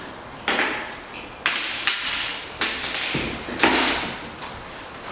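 Hard parts being handled and set down: about five sharp clacks and taps, some followed by a short scrape or rustle, one with a brief high ping about two seconds in. This is mini blind hardware and parts being moved around.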